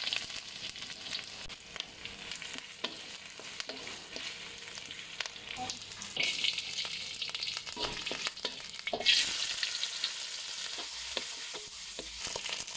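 Chopped onion, garlic and ginger, then dried anchovies, sizzling in hot oil in a wok while a wooden spatula stirs and scrapes them, with short clicks throughout. The sizzle gets louder about six seconds in and again about nine seconds in.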